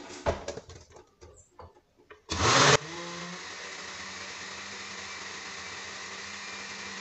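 Oster countertop blender blending a thick pumpkin and papaya smoothie. After a few light knocks, the motor comes on about two and a half seconds in with a loud burst, then runs at a steady, even pitch.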